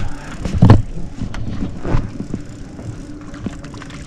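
A boat motor running steadily at trolling speed, a low even hum, with a few sharp knocks and rattles on the boat, the loudest about a second in.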